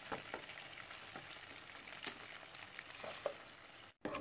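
Pieces of goat meat sizzling in hot oil in a nonstick frying pan, with a wooden spatula stirring them and scattered small scrapes and pops. The sizzle breaks off briefly near the end.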